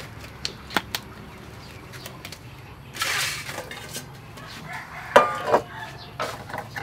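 Hens clucking close by, mixed with the clatter and scrape of a metal tray being handled and set down on a wooden table; the loudest sounds are two short, sharp calls or clanks about five seconds in.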